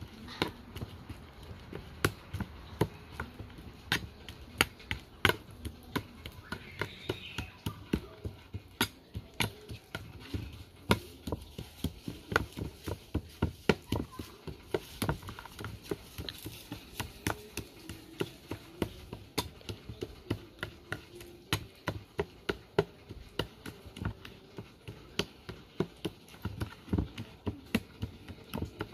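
A metal spoon mashing banana in a plastic bowl, knocking against the bowl in sharp, irregular clacks about two or three times a second.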